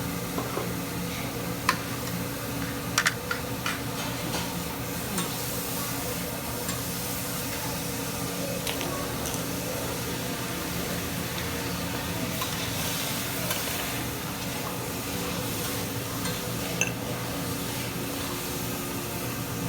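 Food sizzling on a hibachi griddle, a steady frying hiss, with a few sharp clicks about three seconds in and again near the end, over a steady low hum.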